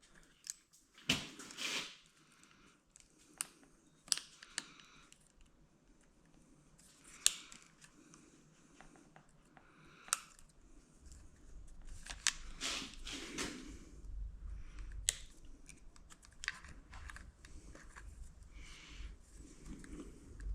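Scattered small clicks, taps and rustling of hands working plastic wiring connectors apart with a pick, with a few sharper clicks and a low rumble that comes in about halfway through.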